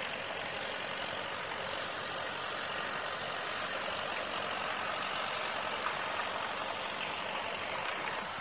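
Steady hissing background noise at an even level, with no distinct sounds standing out.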